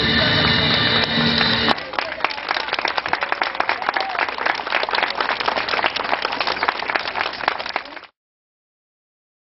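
Music playing for a short moment, cutting off abruptly, followed by a crowd applauding and clapping for about six seconds before the sound cuts to silence.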